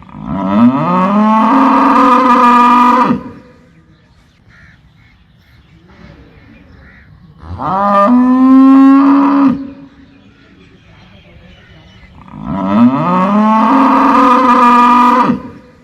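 A cow mooing three times: long calls of two to three seconds each that swoop up in pitch at the start and then hold steady, with pauses of a few seconds between them.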